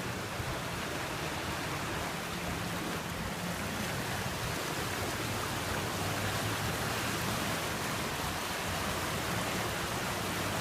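Flooded creek running high in raging rapids: a steady rush of water.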